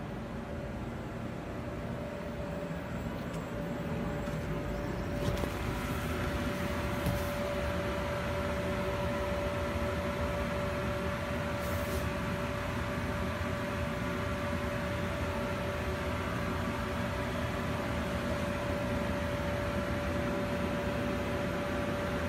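Electric blower keeping an inflatable bounce house inflated, running with a steady hum and a constant whine, growing louder over the first several seconds.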